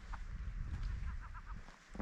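Low, gusting rumble of wind on the microphone, with a short run of faint, distant seagull calls near the middle.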